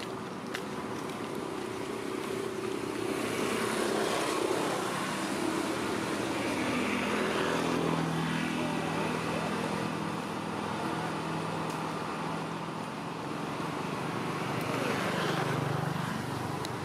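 Drone of a motor engine going by, its pitch sliding slowly down and then holding steady, swelling again near the end.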